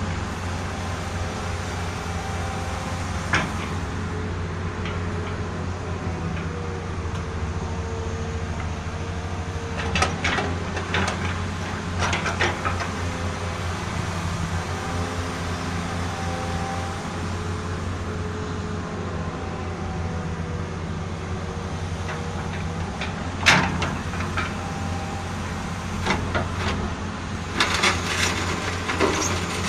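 Caterpillar excavator's diesel engine running steadily, with a whine that drifts slowly up and down in pitch as its functions are worked. Sharp metallic clanks come now and then, one a few seconds in, several around the middle and a quick cluster near the end.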